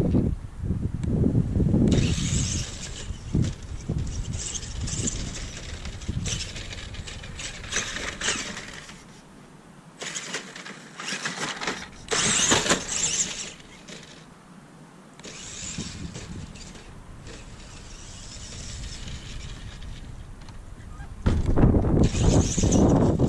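Tamiya Super Clod Buster RC monster truck driving over grass: its Tamiya Super Sport TZ electric motors and gearboxes whine in spurts as the throttle comes on and off. There are deep rumbling bursts at the start and near the end.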